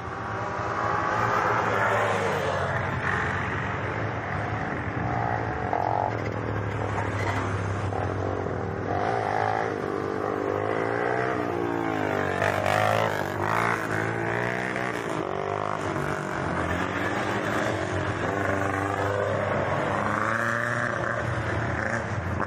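Engines of several quad bikes and a dune buggy driving past one after another. The engine pitch rises and falls as they go by, most strongly around the middle.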